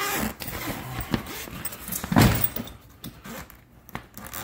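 Handling noise from a wheeled airbed case on a concrete floor: knocks and rustling, with one louder thump about two seconds in.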